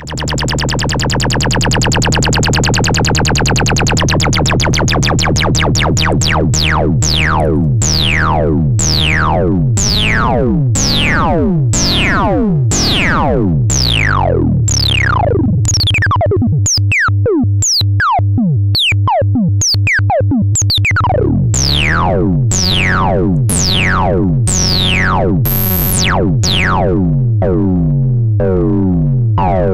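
LushOne synthesizer's self-resonating filter, its cutoff driven by two LFOs multiplied together in the VCA, chuntering away as a stream of falling pitch sweeps over a steady low drone. The sweeps come quickly at first, then slow to about one or two a second, and their rhythm changes as the LFO settings are turned.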